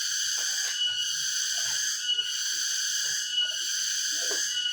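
Steady high-pitched hiss that dips briefly about once a second, with faint soft rustles underneath.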